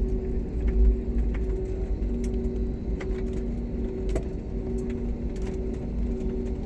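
Airliner cabin noise during landing: a deep steady rumble with two steady hum tones, and scattered light clicks and rattles from the cabin.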